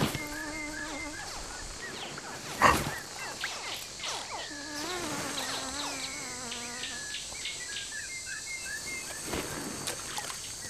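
Riverbank wildlife ambience: a steady high insect drone, two long wavering animal calls, and short high bird chirps near the end. A single sharp knock about two and a half seconds in is the loudest sound.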